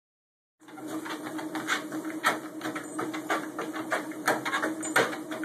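Treadmill running with a steady motor hum, starting about half a second in, under the irregular taps and knocks of a pit bull's paws on the moving belt.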